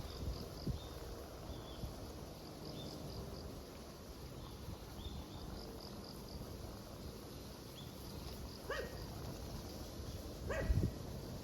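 A dog barks twice, about two seconds apart, near the end, over a steady background of faint high insect chirping and low wind rumble.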